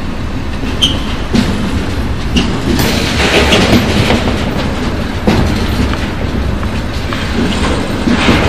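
Freight train of tank wagons rolling past, wheels clattering over rail joints, with a few brief high wheel squeals.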